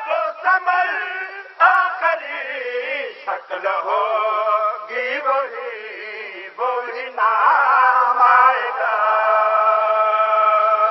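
A man's solo voice chanting an Urdu devotional qasida in long, ornamented melodic phrases, then holding one long note through the last few seconds.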